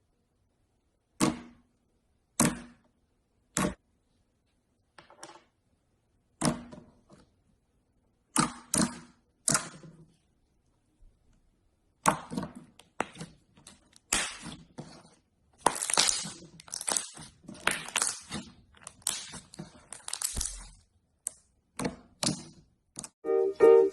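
Slime being pressed and worked by hand, giving sharp pops spaced about a second apart at first, then dense crackling and popping from about halfway through.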